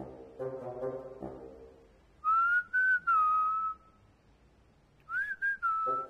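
A man whistling in two short runs of notes, about two seconds in and again near the end. The first run breaks into a few pieces and sinks slightly at its close. It is a call whistle to bring a dog.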